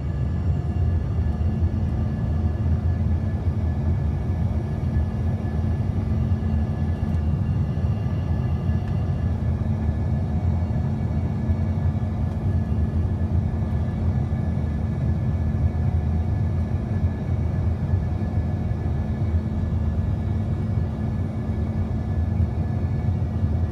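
Steady rumble of an aircraft's engines and rushing air during a landing approach in gusty wind, with a steady hum running through it.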